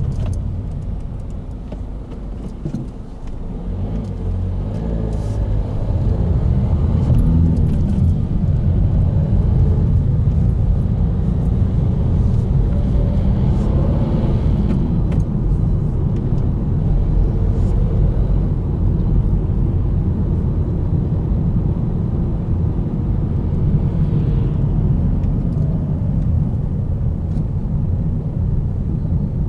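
Car driving, its engine and road noise heard from inside the cabin: it eases off about two seconds in, picks up with a rising engine note from about four seconds, then settles into a steady cruise.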